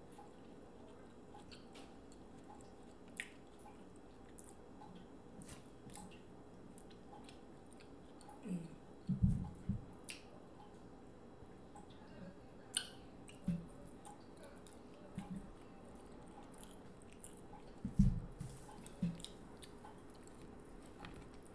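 Close-miked eating: intermittent wet chewing and squishing of sauce-soaked seafood-boil food, with scattered small clicks and a few louder bursts about nine and eighteen seconds in. Near the end, a cob of corn is bitten and chewed.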